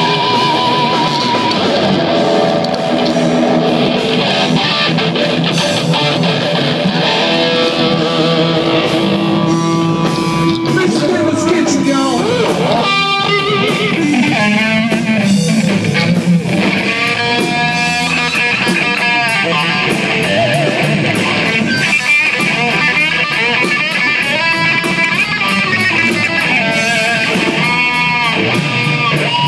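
Stratocaster-style electric guitar played loud through an amplifier: a lead line of sustained notes with string bends and wide vibrato.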